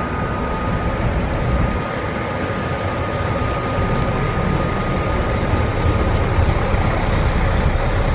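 Two-car Alstom Coradia LINT 41 diesel multiple unit running past at low speed: diesel engine rumble with a steady whine, growing a little louder as it comes closer.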